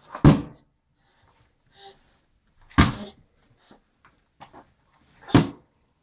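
Three hard knocks about two and a half seconds apart as a toddler bangs a vacuum cleaner's plastic floor nozzle about; the vacuum itself is switched off.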